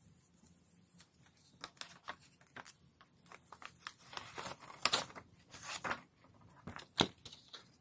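Paper rustling and crinkling as sheets are rubbed down on a gel printing plate and peeled off it: a run of short scratchy, crackling sounds, loudest about five and seven seconds in.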